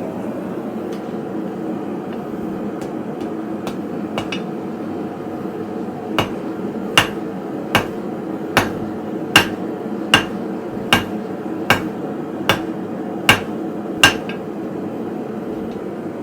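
Hand hammer striking hot steel on an anvil while forging a hook: a few light taps, then a run of about eleven sharp, ringing blows, roughly one every 0.8 seconds, over a steady background hum.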